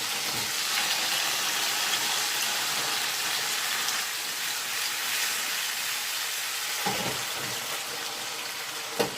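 Garlic and tomatoes frying in olive oil in a pan, a steady sizzle. A short sharp knock near the end.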